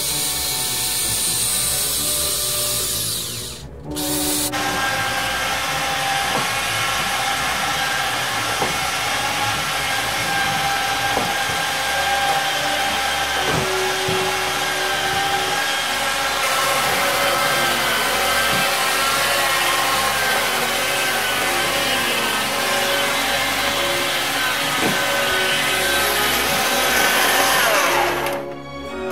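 Warn PullzAll corded electric pulling tool running under load, its motor and gears making a steady whine as it draws in the wire rope. It stops briefly about four seconds in, starts again, and winds down near the end.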